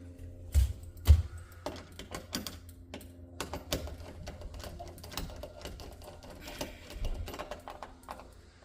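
Irregular clicking and tapping of metal door-handle hardware being handled and a screw being driven in by hand, with two heavier knocks near the start.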